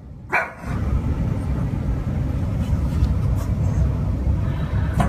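Loud, heavy low rumble of wind and car road noise buffeting a phone microphone in a moving car. It starts suddenly just after a brief falling sound near the start.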